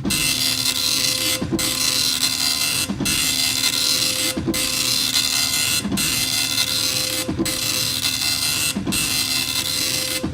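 Dot matrix printer printing: the print head buzzes in a dense rasping run, breaking off briefly about every second and a half with a low thump as each line ends and the next begins.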